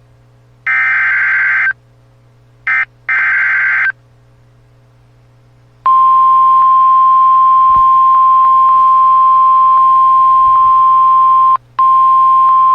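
Emergency Alert System activation on NOAA Weather Radio. First come two short bursts of SAME digital header data, which encode the alert. After a pause of about two seconds, the steady 1050 Hz warning alarm tone begins; it drops out for a moment near the end and then carries on. This coded header and alarm announce a severe thunderstorm warning.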